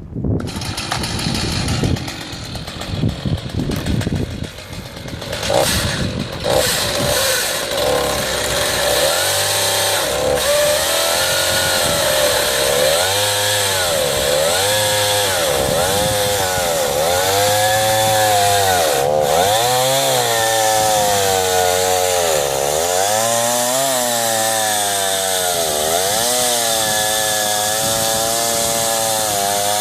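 Chainsaw mounted in an Alaskan small log mill ripping lengthwise through a log. It runs unevenly for the first several seconds, then settles into a continuous high-revving run, its engine pitch dipping and recovering every second or two as the chain bites into the wood.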